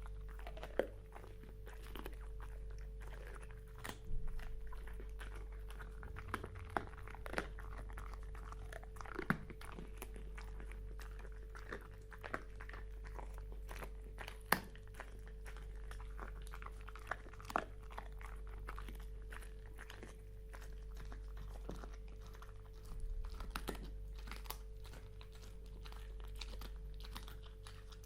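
Dog gnawing and chewing on a bone: irregular sharp cracks and crunches of bone between its teeth, with wet tongue and mouth noises, over a steady low hum.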